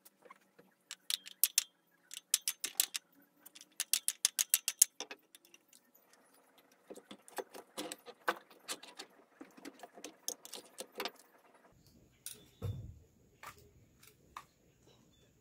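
Light metallic clicks and clinks of small carburetor parts and hand tools being handled, in quick irregular clusters, with a dull thump near the end.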